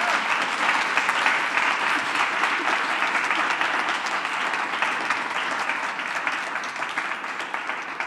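Audience applauding: a dense, steady run of many hand claps that tapers off near the end.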